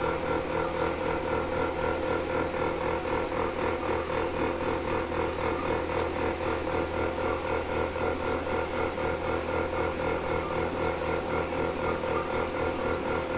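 Milking machine running steadily, its motor and vacuum pump giving a continuous whir with a fast, even throb.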